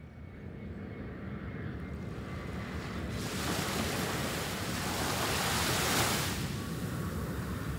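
Small sea waves washing onto the shore, with wind on the microphone and a low steady rumble underneath. One wash of surf swells up about three seconds in and dies away about three seconds later.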